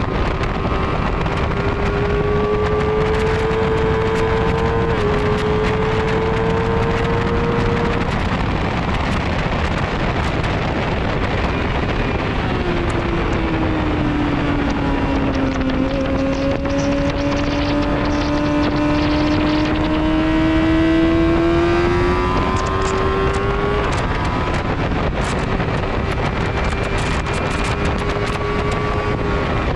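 Vehicle engine heard onboard at speed on a race track, with heavy wind rush over the microphone. The engine note climbs under acceleration with a gear change about five seconds in, falls away as it slows around the middle, climbs again, and drops at another shift near the end.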